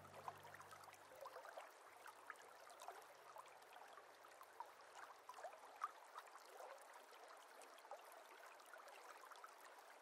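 Faint trickling water with many small scattered drips, under the tail of a music track that fades out in the first second or two.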